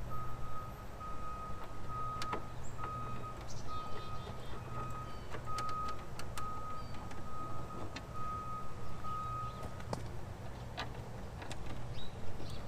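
A steady high tone with short breaks runs until about ten seconds in, then stops. Under it are a few sharp clicks and taps of small fasteners and plastic parts being handled, and a low hum.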